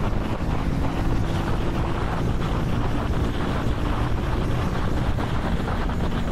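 Heavy wind rush buffeting the microphone of a motorcycle cruising at around 50 mph, with the Vitacci XMT 250's engine running underneath as a faint steady drone.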